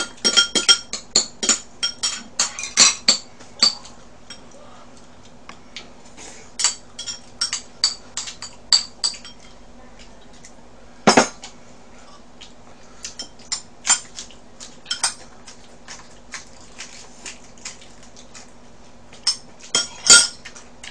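Chopsticks and a spoon clicking and clinking against bowls and dishes during a meal. There is a quick run of clinks in the first few seconds, then scattered ones, with a louder knock about eleven seconds in and a few sharp clinks near the end.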